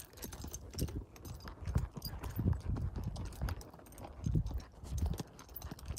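Hoofbeats of a ridden horse moving over sandy dirt: soft thuds about twice a second.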